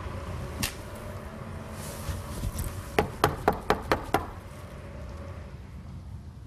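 Six quick sharp knocks, about four a second, over a steady low rumble.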